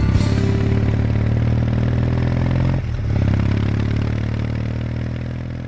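Kawasaki W800's air-cooled parallel-twin engine running steadily while under way, with a brief drop in the engine note about three seconds in, then fading away.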